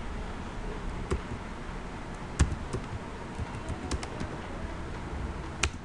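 Typing on a computer keyboard: irregular key clicks, with a couple of sharper strokes about two and a half seconds in and near the end, over a steady low background hum.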